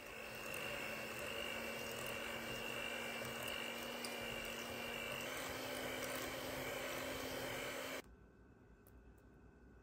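Electric hand mixer running steadily as its wire beaters cream softened butter and sugar in a glass bowl. Its pitch steps up slightly about five seconds in, and it cuts off suddenly about eight seconds in.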